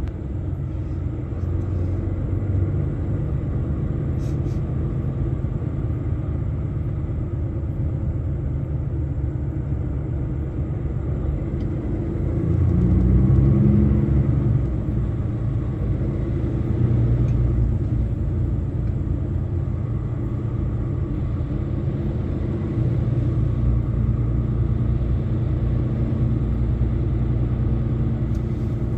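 Heavy truck's diesel engine running with a low, steady rumble, its note rising and swelling briefly about halfway through.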